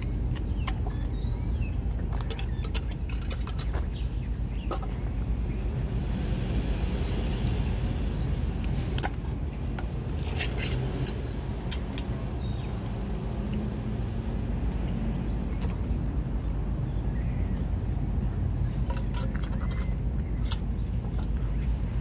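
A cat eating wet food, small chewing and licking clicks scattered through, mostly in the first half, over a steady low rumble like a motor running.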